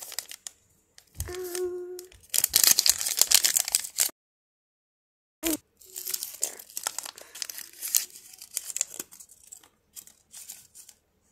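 A paper-and-plastic toy blind-bag packet torn open by hand, with a loud rip lasting about two seconds. The wrapper is then crinkled and rustled in a string of small crackles. A brief voice sound comes about a second in.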